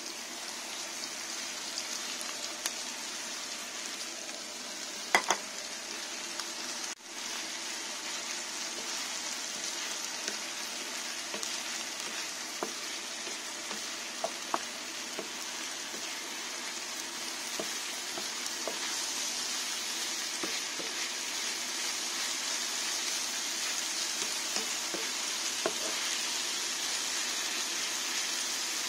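Leeks and bacon lardons sizzling in a frying pan, growing a little louder in the second half, with the wooden spatula ticking and scraping against the pan as they are stirred. A couple of sharp knocks come about five seconds in.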